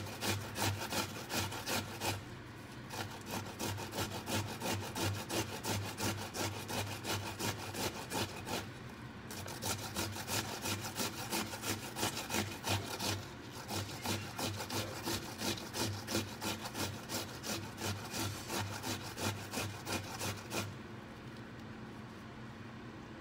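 Vegetables being shredded by hand on a stainless steel box grater: quick rasping strokes, about two a second, with a few short pauses. The grating stops a couple of seconds before the end.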